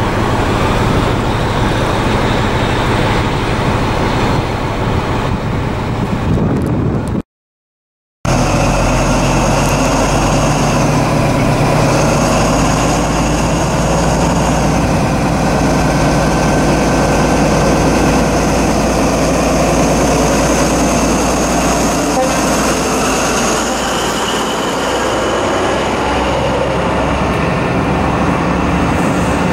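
A diesel multiple unit running through the station, then, after a sudden cut, an InterCity 125 (HST) power car's diesel engine running steadily close by with a constant high whine.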